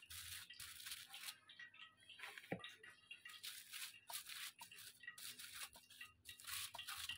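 Hand patting and pressing a soft mashed chicken-and-potato kabab mixture flat on a plastic bag sheet: faint, irregular crinkles of the plastic and soft squishy pats.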